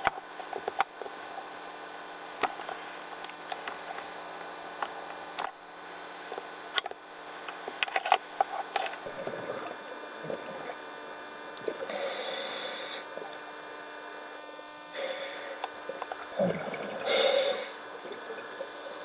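Underwater: a scuba diver's exhaled bubbles rush out from the regulator three times, about a second each, the last the loudest. Scattered sharp clicks and a steady hum run underneath.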